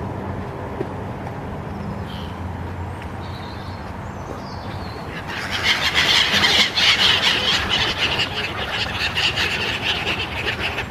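A flock of black-headed gulls squealing and squawking all at once as they crowd in to feed. The calls start about halfway through over a low steady rumble and become the loudest sound.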